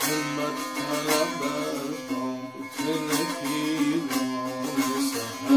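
A tanbur, the long-necked fretted Kurdish lute, strummed with the right-hand fingers, playing a melodic phrase over its ringing open-string drone. A harder stroke comes near the end.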